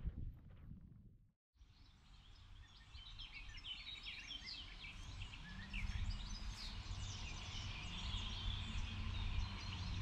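Small songbirds chirping and trilling, with a low steady rumble underneath that grows louder from about halfway. The sound drops out briefly about a second and a half in.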